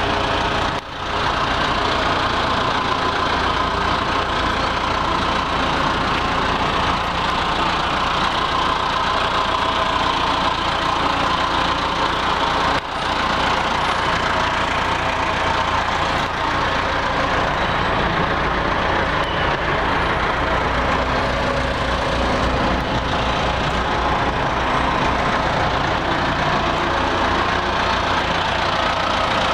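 Diesel engine of a Caterpillar 416 backhoe loader idling steadily.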